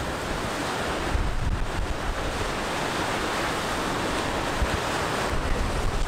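Ocean surf washing and breaking against lava rock along the shore, mixed with wind buffeting the microphone in low, gusty rumbles from about a second in.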